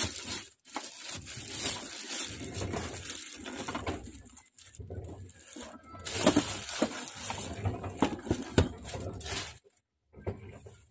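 Clear plastic bag crinkling and rustling as it is pulled off a new inkjet printer, in uneven handfuls, with a couple of sharp knocks in the second half.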